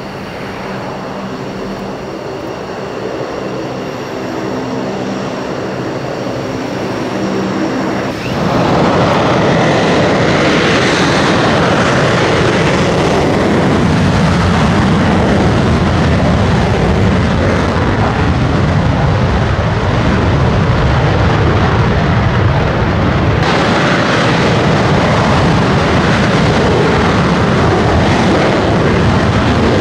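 F-15C's twin Pratt & Whitney F100 turbofan engines at high power, a steady whine. About eight seconds in it jumps suddenly to a loud, even rushing noise as the jet goes to full power, with afterburners lit, for its takeoff roll.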